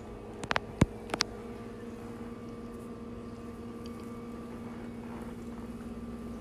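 Steady low hum of a running household appliance. About half a second in, a quick cluster of half a dozen sharp clicks or taps, the loudest near the middle.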